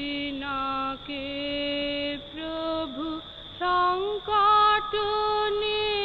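A boy singing a devotional song solo, holding long notes that bend and slide in pitch, moving up to higher notes about three and a half seconds in.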